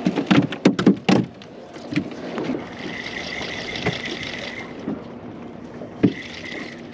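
A quick run of sharp knocks and thumps on the boat in the first second or so, then the steady whir of a spinning reel being cranked in for about two seconds, and again briefly near the end after one more knock.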